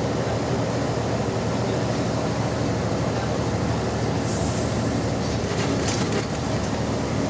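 Double-decker bus engine running under way, heard on board, with the raspy note of an exhaust leak. A short hiss about four seconds in, followed by a few light clicks.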